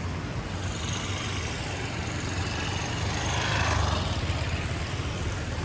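Motorcycle engine running steadily, with the sound swelling louder a little past the middle.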